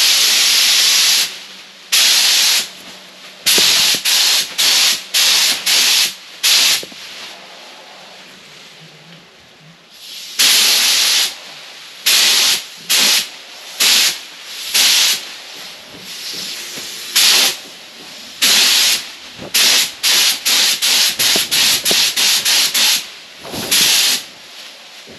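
HVLP spray gun hissing in repeated short bursts as the trigger is pulled and released, spraying POR-15 rust preventive coating, with a lull of a couple of seconds a third of the way in.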